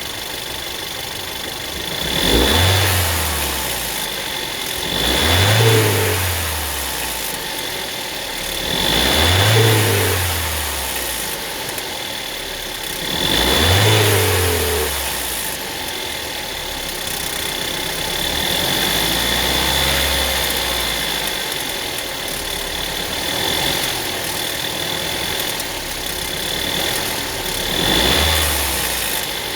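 2009 Volkswagen Tiguan engine idling and revved up and back down several times, each rev rising and falling within a second or two, with one longer gentler raise in the middle. A rattle is being shown from the engine.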